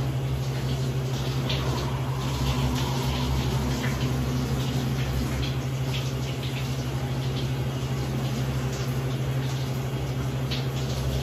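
Shower spray running steadily into a bathtub, over a steady low hum, with a few faint clicks.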